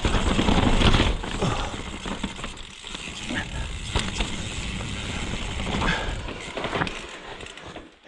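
Mountain bike running down a dirt trail: tyres rolling over the ground and the bike clattering and rattling over bumps, with wind rushing over the action camera's microphone.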